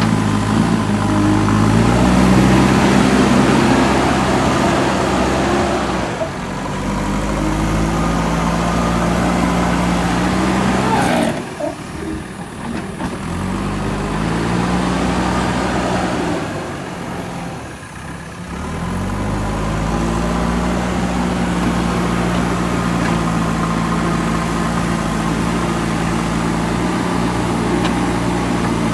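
JCB 3DX backhoe loader's diesel engine working, its pitch rising and falling as the throttle and load change. It eases off twice to a lower, quieter running, about a third and about two thirds of the way through, before picking up again.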